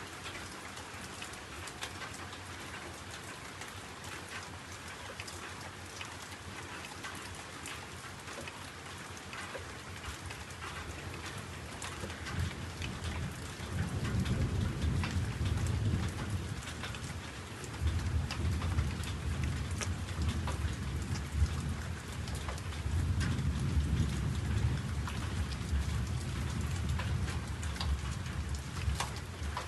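Steady rain, with many small drops ticking on a surface. From about halfway through, a low rumble swells in and out several times over the rain.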